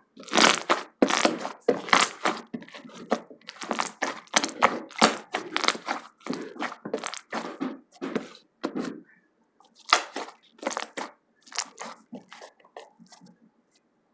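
Slime being squeezed and smashed by hand, giving a fast run of sharp, irregular pops that thin out over the last few seconds.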